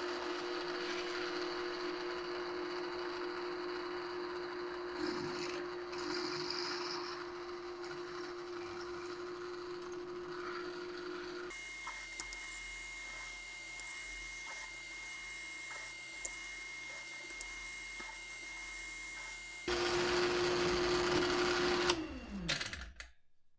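Electric drill running steadily while re-drilling the holes in a riding-mower deck sheave to a quarter inch. The tone changes abruptly twice, and near the end the motor is released and spins down with a falling pitch.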